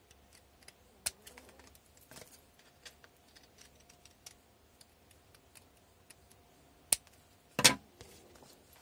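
Scissors snipping through a paper pattern, a run of small quiet cuts with sharper clicks about one, two and seven seconds in. The loudest noise is a short sharp one just before the end, as the cut paper piece is handled.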